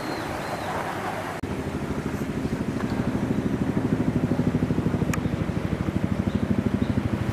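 A motor engine running with a rapid, even low pulsing that comes in suddenly about a second and a half in and grows a little louder.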